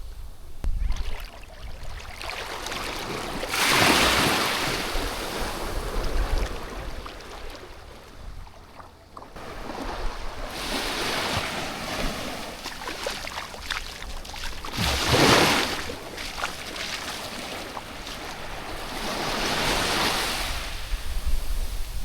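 Sea waves breaking and washing up the beach in about four surges, the loudest around four seconds and fifteen seconds in, with wind buffeting the microphone.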